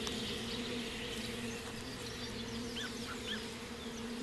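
Bashkir honeybees buzzing around a log hive in a tree: a steady hum.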